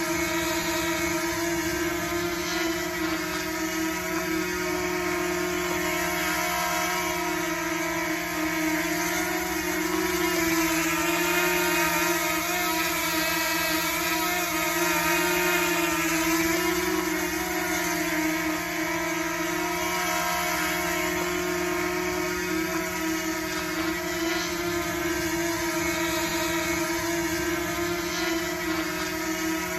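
DJI Mini drone flying, its propellers making a steady high buzzing whir with a strong humming tone whose pitch wavers slightly as the motors adjust speed.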